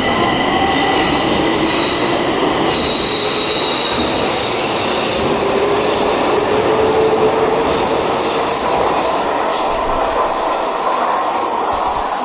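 Stockholm metro train pulling out of an underground station along the platform: a steady rumble of wheels on rail with high wheel squeal, and a motor whine rising in pitch as it gathers speed.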